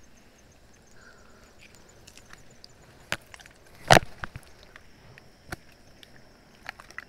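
A spear knocking against rocks: a few sharp knocks, one much louder about four seconds in.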